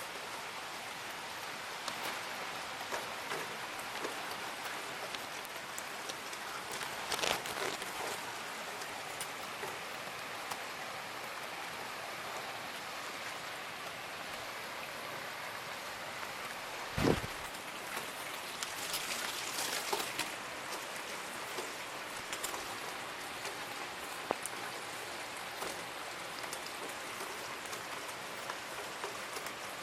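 Heavy rain falling steadily, with scattered louder drops. A single sharp thud sounds about halfway through.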